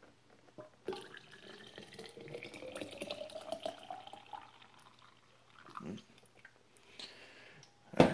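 Water poured into a canteen-style drink bottle. The pitch rises steadily as the bottle fills, for about three and a half seconds. A sharp knock near the end is the loudest sound.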